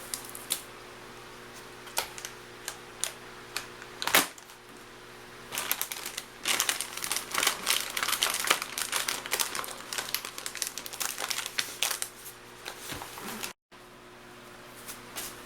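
Plastic MRE ration packaging crinkling and rustling as it is handled, with scattered clicks and taps. The handling is busiest through the middle. Near the end the sound cuts out completely for a moment.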